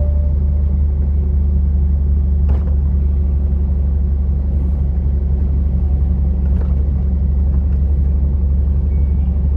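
Semi-trailer truck on the road: steady low engine drone and road rumble, with two faint clicks a few seconds apart.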